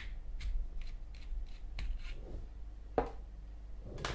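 Zippo lighter insert being worked to get the flint out: a run of small, irregular clicks and scrapes, with a sharper click about three seconds in and another near the end.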